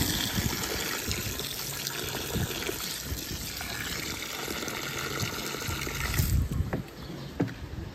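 Water from a garden hose spray nozzle running into wet concrete mix in a wheelbarrow, shutting off abruptly about six seconds in.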